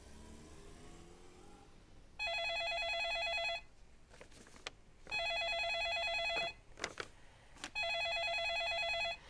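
Cordless home telephone ringing with an electronic warbling ring: three rings of about a second and a half each, with short pauses between. A few light handling sounds fall between the rings.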